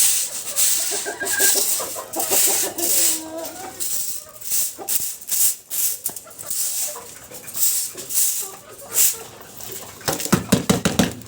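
Caged chickens clucking, with short scratchy rustling noises repeating throughout. A louder, rapid run of clucking comes near the end.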